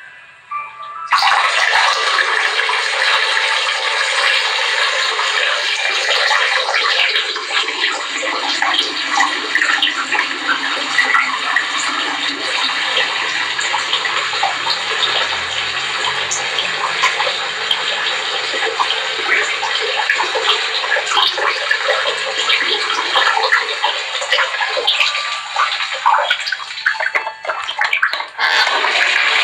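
A steady stream of water splashing in a bathroom, starting about a second in and running on until it stops near the end.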